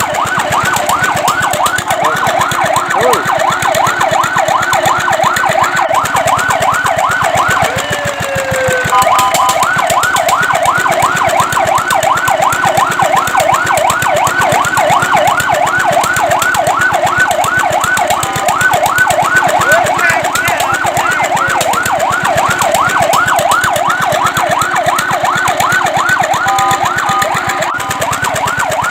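Fire truck siren in a fast yelp, a rapid rising sweep repeating about four to five times a second. A few times it briefly switches to a steady two-note tone before the yelp resumes.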